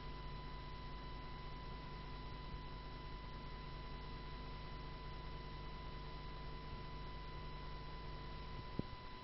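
Faint steady electrical hum and hiss, with a thin steady high whine running through it. A single click near the end, after which part of the low hum drops away.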